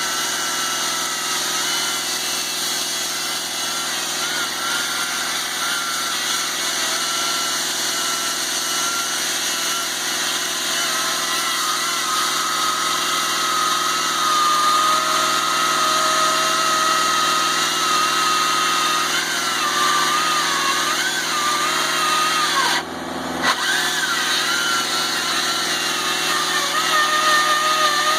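Two-stroke chainsaw engine running continuously at high speed, its pitch wavering and sagging now and then. There is a brief drop in level about twenty-three seconds in.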